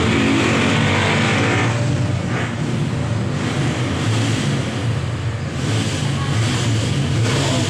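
A steady low mechanical drone with a hiss of noise over it, the hiss brighter in the first second and a half.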